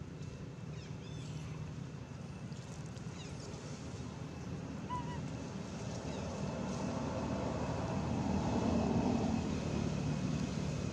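Low rumble of a motor vehicle's engine, swelling to its loudest just before the end and easing off, as if passing by. A few faint short chirps sound about a second in and again about five seconds in.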